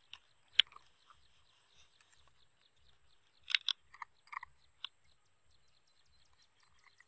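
A metal spoon clinking and scraping against a small bowl and a clay mortar as seasoning is spooned in: one sharp clink just after half a second in, then a quick run of clinks about three and a half to five seconds in.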